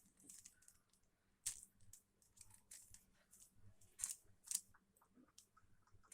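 Rubik's cube being turned by hand: faint, irregular plastic clicks and scrapes as the layers rotate, with a few sharper clicks.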